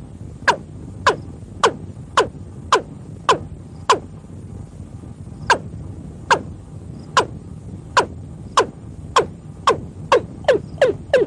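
Male watercock calling: a series of sharp, steeply falling notes, about two a second, with a short pause about four seconds in, then coming faster near the end.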